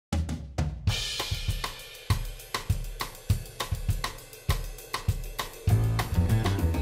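Background music led by a drum kit: a cymbal crash about a second in, then a steady beat of drum and hi-hat hits, with a bass line joining near the end.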